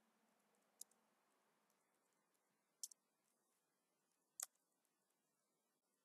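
Faint computer keyboard keystrokes over near silence: sparse light ticks with three sharper key clicks, about a second in, near three seconds and past four seconds.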